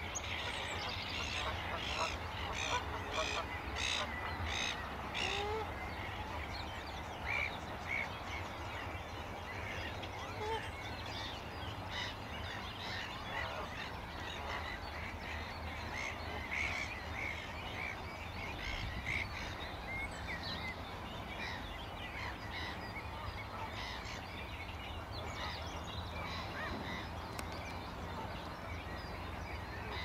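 Wetland birds calling: many short, overlapping calls, with a quick series of calls about two to five seconds in, over a steady low hum.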